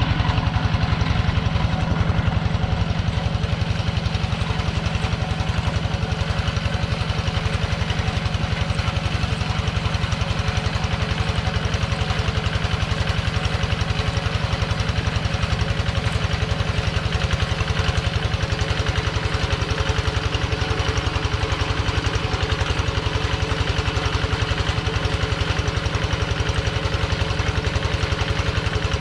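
Kubota two-wheel hand tractor's single-cylinder diesel engine running steadily under load as it plows a flooded rice paddy, with a fast, even chug.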